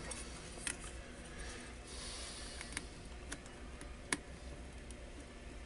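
Small sharp metal clicks and light scraping as a hand tool works at the fasteners holding a small circuit board: a handful of ticks, the loudest about four seconds in.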